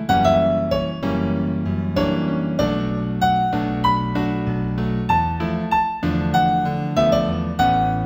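New-age piano music in A major: a melody of single struck notes, about two a second, over low sustained chords.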